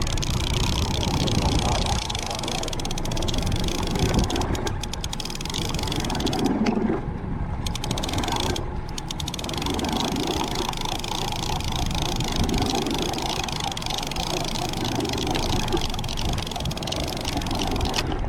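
Steady rushing noise of wind and water aboard an offshore fishing boat, with a few faint clicks about 4 and 8 seconds in.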